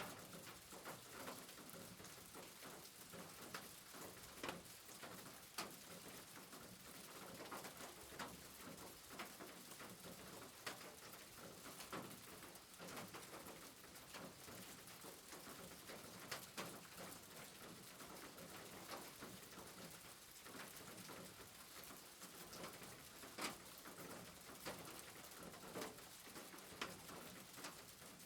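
Faint steady rain, an even hiss broken by scattered individual drops tapping.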